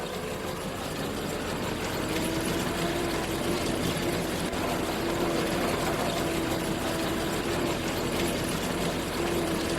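Harvest machinery running steadily: an engine under a constant mechanical noise, with a wavering whine.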